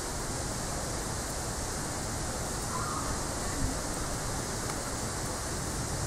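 Steady outdoor background hiss with no distinct event, and a faint brief chirp about three seconds in.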